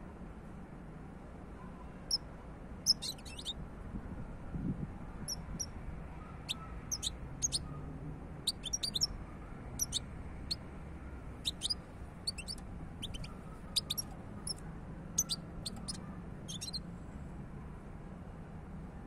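European goldfinch singing: short, high twittering notes in irregular clusters, starting about two seconds in, over a steady low hum.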